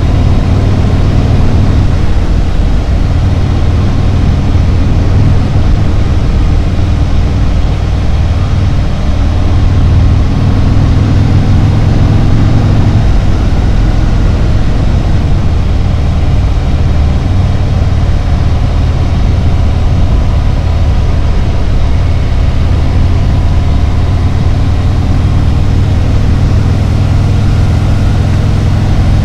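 Harley-Davidson Road Glide's V-twin engine running steadily while riding on the road, a deep low drone with a constant rush of noise over it.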